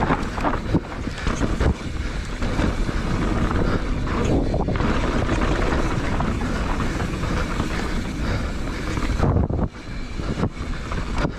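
Mountain bike ridden at speed down a dirt forest trail: steady wind rush over the camera microphone, with tyres running over dirt and roots and the bike knocking and rattling over bumps. The rush drops off briefly about nine and a half seconds in.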